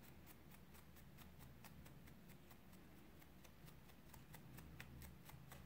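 Faint quick ticks, several a second, from a fine-toothed comb being drawn through a fluffy pompom of single-twist cotton macramé cord, teasing the strands apart.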